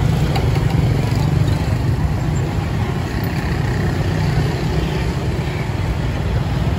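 Steady street ambience dominated by the low rumble of road traffic.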